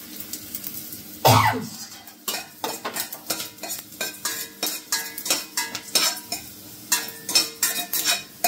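A metal spoon stirring coriander seeds in a steel frying pan, clinking and scraping against the pan several times a second from about two seconds in. Just over a second in there is one loud, brief noise.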